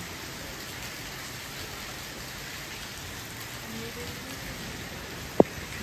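Steady rain falling, heard as an even hiss, with one sharp knock near the end.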